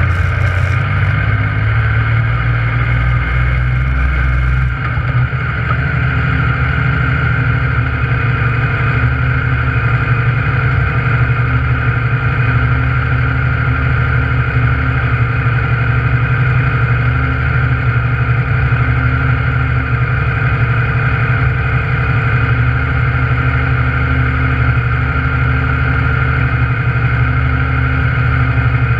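Yamaha YXZ1000R side-by-side's engine running steadily, heard from inside the cab.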